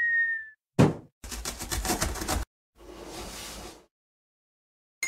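Sound effects of an animated channel intro: a short high tone that fades out, a thump about a second in, a fast rattle for just over a second, then a hiss-like whoosh lasting about a second.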